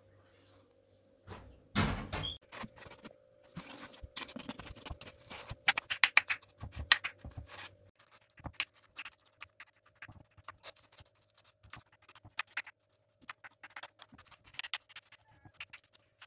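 A metal spoon clicking and scraping against a glazed clay dish while herb flatbread is broken up and crumbled by hand: a long run of quick, irregular clicks and scrapes, loudest in the first half.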